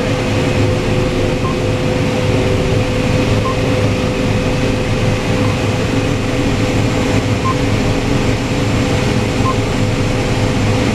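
Corn combine harvester running steadily during harvest, heard from inside the cab as a constant low drone with a steady hum. A short, faint beep about every two seconds comes from the GPS system that continuously logs the machine's position for yield mapping.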